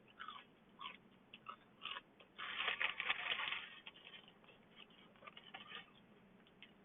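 Crunchy biting and chewing of a fried chicken sandwich close to the microphone: scattered crackly crunches, with a longer, denser stretch of crunching about two and a half seconds in.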